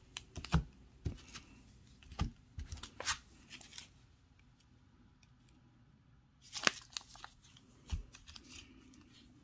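Silver coins in clear plastic flips being handled with cloth-gloved hands: a scatter of small clicks and plastic rustles, with a quiet stretch in the middle.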